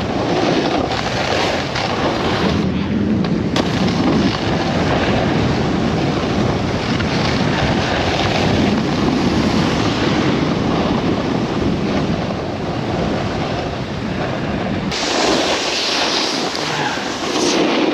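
Steady wind rushing over a helmet-mounted GoPro's microphone, mixed with a snowboard sliding over snow. The sound turns harsher and hissier about three seconds before the end.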